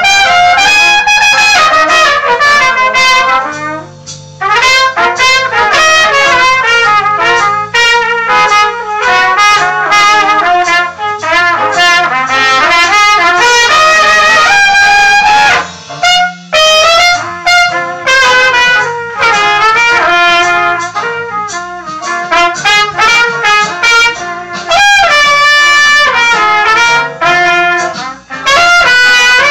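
Two trumpets playing a duet together, a run of quickly changing notes broken by a few short pauses.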